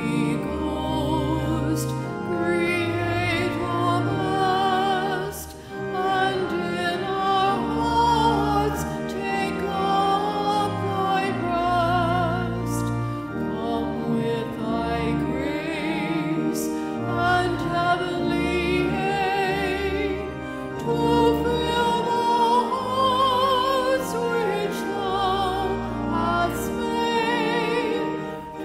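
Communion hymn: a solo classical-style singer with strong vibrato, holding long notes over sustained instrumental accompaniment.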